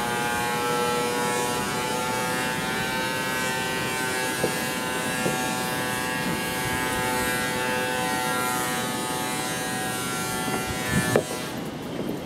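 A workshop machine running with a steady, high whining drone made of many pitches at once. Near the end there is a short clatter and the upper part of the whine drops away.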